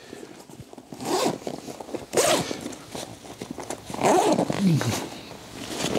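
Zipper of a tactical duffel bag being pulled open in about three rasping strokes.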